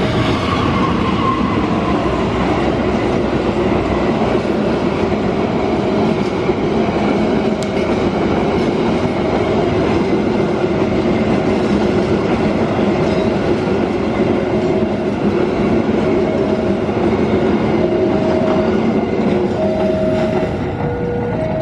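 Diesel-hauled Taksaka passenger train passing at speed: the locomotive goes by at the start, then a long steady rumble and clatter of coach wheels on the rails. A level-crossing warning signal keeps sounding a short repeated chime, about every second and a half, through the train noise.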